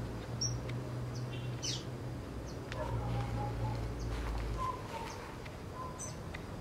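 Birds chirping, with short high chirps and brief whistled notes, over a steady low hum.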